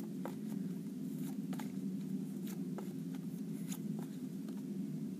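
Paper flashcards flipped and shifted in the hands, giving a scatter of soft paper flicks and taps over a steady low hum.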